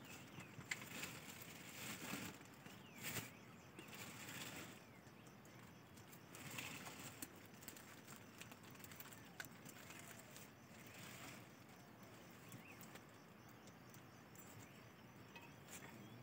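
Faint rustling and scattered small clicks of close handling and movement, with a few faint short bird chirps.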